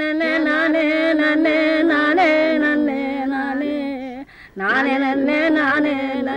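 A solo voice singing a long, ornamented melody with wavering, gliding pitch. The phrase breaks off about four seconds in and a new phrase starts a moment later.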